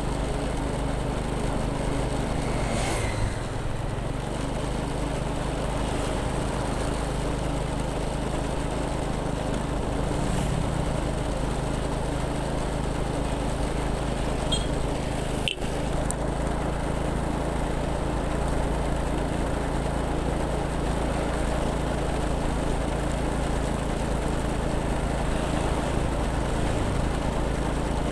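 Motorcycle engine running steadily while riding, its pitch shifting slightly a few times.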